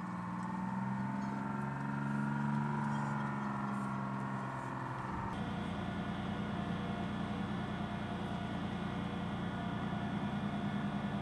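LAV-25 light armored vehicle's diesel engine running steadily. About halfway through the sound changes abruptly to a denser, even engine hum as the vehicle swims in the water.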